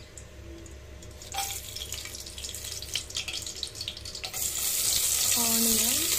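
Whole spices crackling and spitting in hot oil in a pressure cooker. About four seconds in, sliced onions go into the oil and a loud, steady sizzle begins.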